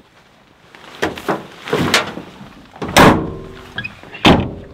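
Clunks and thuds of a pickup truck's door and body being worked: several knocks, the loudest about three seconds in with a short metallic ring after it, and another thud near the end.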